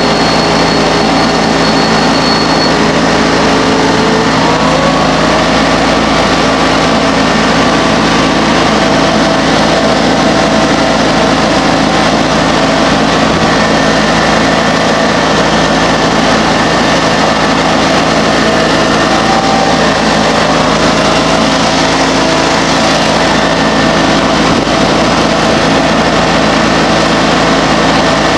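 John Deere X585 garden tractor engine running steadily under way while being driven along the road. Its pitch rises about four seconds in and again around twenty seconds in.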